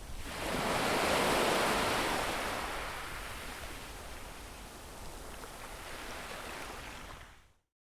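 Sea waves on a beach shore: one wave swells in about half a second in, breaks and washes back over several seconds, then the sound fades out to silence near the end.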